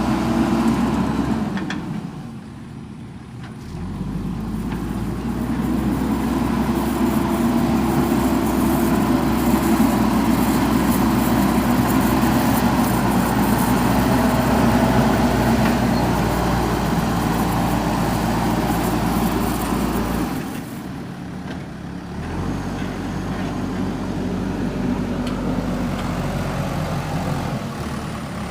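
JCB backhoe loader's diesel engine running steadily under load while it works soil, dropping away twice for a second or two before coming back up.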